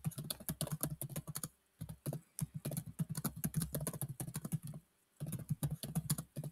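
Typing on a computer keyboard: quick runs of clicking keystrokes, broken by two short pauses, about two seconds in and about five seconds in.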